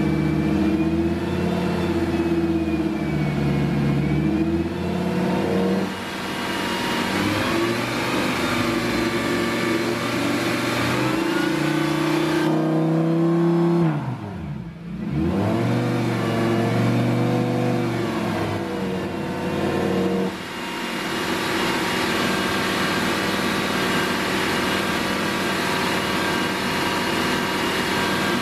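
Lamborghini Gallardo V10 engine running with the engine lid raised, its pitch wavering up and down at raised revs, dropping sharply and climbing back about halfway through, then settling to a steady idle for the last several seconds. It is being run after a fresh oil and filter change.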